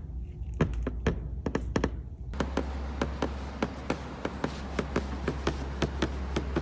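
Rapid, irregular ticking and creaking clicks, several a second, from the door and side-mirror area of a BMW G30 5 Series, over a steady low rumble. The noise comes from the side-mirror housing rubbing against the door moulding.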